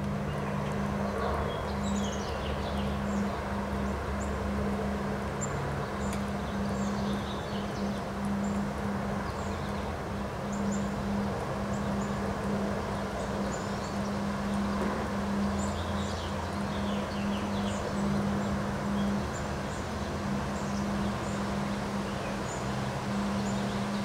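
Strong wind rushing through leafy trees, a steady rustling of leaves, with small birds chirping on and off throughout and a steady low hum underneath.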